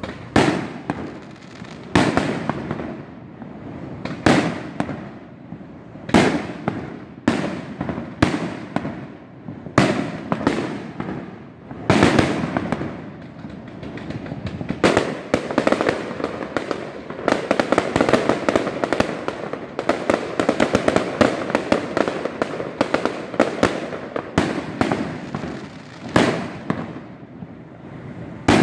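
Aerial firework shells bursting, a sharp bang every second or two. A dense run of rapid bangs and crackling comes in the middle, then the bursts thin out near the end.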